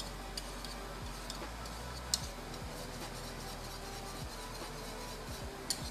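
A utensil stirring molokhia in a stainless steel pot, giving scattered light ticks against the pot over a steady low hiss. The sharpest ticks come about two seconds in and again near the end.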